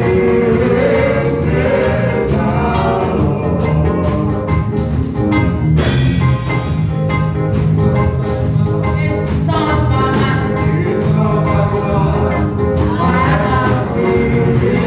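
Gospel worship song: voices singing over a band with a steady percussion beat.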